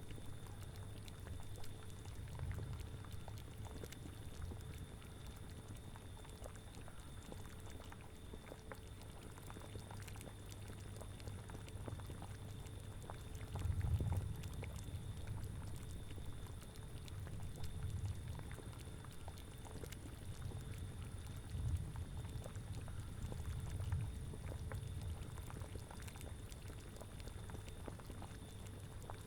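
A cauldron of liquid bubbling at a steady boil, with scattered small pops over a low rumble that swells several times, most strongly about halfway through.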